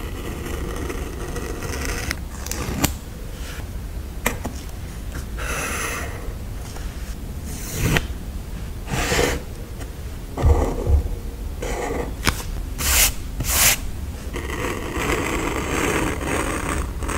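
Close-miked paper and sticker handling in sticker journaling: a series of short scrapes and rustles with a few sharp taps, busiest about two-thirds of the way through.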